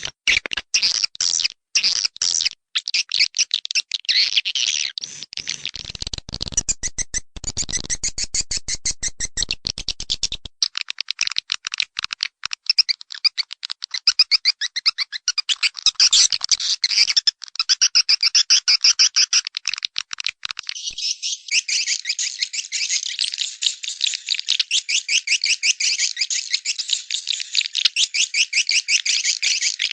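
Swiftlets twittering: dense, fast trains of high chirps that keep going with only brief gaps.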